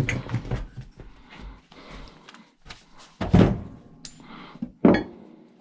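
Knocks and clatter of a chainsaw and tools being handled while the saw is dismantled, with loud thuds at the start, about three seconds in and near the end.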